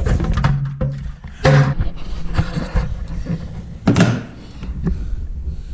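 Two loud knocks about 1.5 and 4 seconds in, with lighter clatter between, over a steady low hum.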